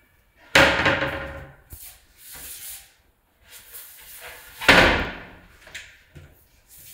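Laminate-faced kitchen wall-cabinet doors banging shut: two loud bangs about four seconds apart.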